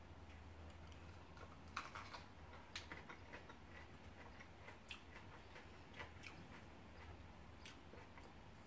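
Faint, irregularly spaced crisp clicks of a raw habanero pepper being chewed, over near-silent room tone with a low hum.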